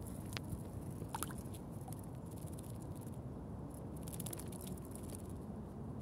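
A tit bathing in a tin can of water: faint splashing and wing flutter in short bursts.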